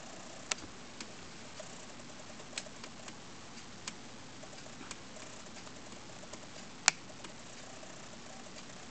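Faint steady hiss with about ten small scattered clicks and taps, the sharpest one about seven seconds in.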